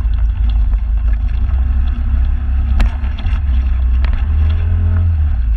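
Motorbike riding over a rough dirt track, its engine and wind on the mounted camera making a loud, deep, steady rumble. Sharp knocks from the bike jolting over the bumpy ground, the strongest about three seconds in.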